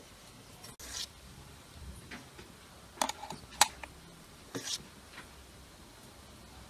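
Metal spoon scooping thick paste from a stainless steel bowl and knocking against the bowl and the glass jar as it fills: a handful of sharp clinks, the loudest about three and a half seconds in, with soft scraping between.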